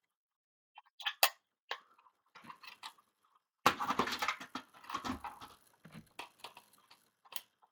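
Handling noise from a plastic smoke and carbon monoxide alarm: a few sharp clicks about a second in, then about four seconds of irregular rustling and scraping. No alarm tone sounds.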